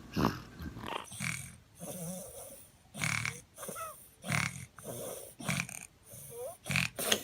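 A sleeping baby snoring: a run of short, noisy breaths about once a second, a few with a small squeaky rise and fall in pitch.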